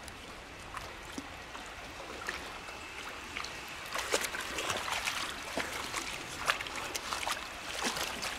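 A dog wading through a shallow, stony river, its legs splashing the water, with a quick run of splashes from about four seconds in over the steady trickle of the stream.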